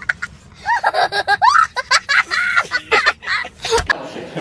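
A young child laughing in high-pitched squeals that rise and fall, stopping shortly before the end.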